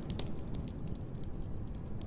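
Wood fire crackling in a fireplace: a few sharp pops and crackles over a steady low rumble.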